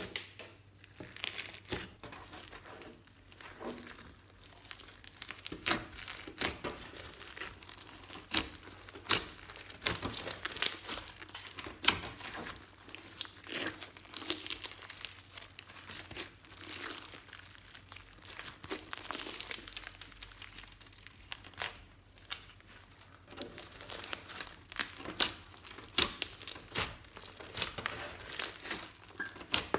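Hands squeezing, kneading and pressing a large lump of glossy slime mixed with beads and glitter, making a dense, irregular run of sticky crackles and sharp clicks.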